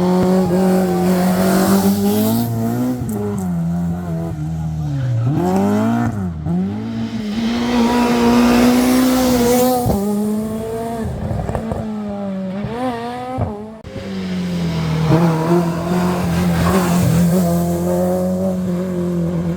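Rally car engine running hard at high revs, its pitch holding steady and then dropping sharply and climbing again around five to six seconds and again near thirteen seconds, as on downshifts under braking and hard acceleration out of a corner.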